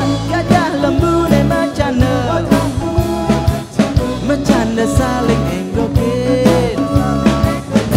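A band playing rock-style music, with a drum kit keeping a steady beat under instrument lines that bend in pitch.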